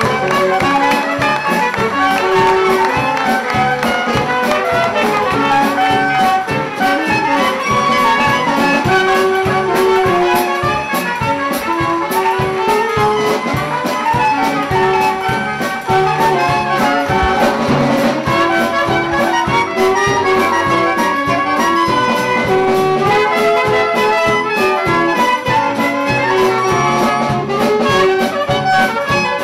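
A jazz band playing, led by saxophones and brass, with many notes overlapping throughout.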